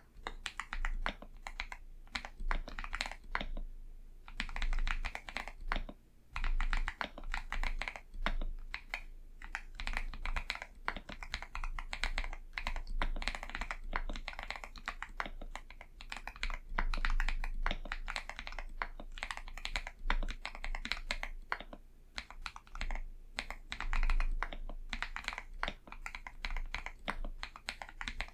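Fast typing on an Akko 5075B Plus mechanical keyboard with Akko V3 Cream Blue switches, lubed and dampened with tape and foam: a dense run of rapid key strokes with brief pauses about four and six seconds in.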